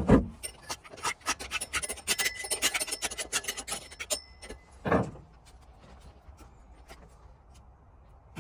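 Husqvarna 545 saw chain and bar being handled: a thump, then a quick run of small metallic clicks and rattles for about four seconds, and another thump about five seconds in.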